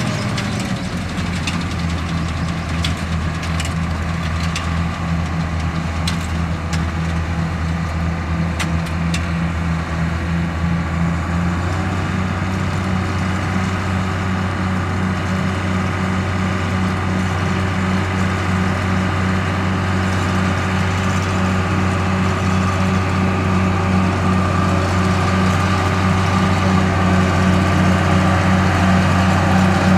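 John Deere 7720 Turbo combine's turbocharged six-cylinder diesel engine and threshing machinery running steadily while harvesting wheat. About twelve seconds in the engine note steps up slightly and grows stronger, then slowly gets louder. A few light ticks come in the first ten seconds.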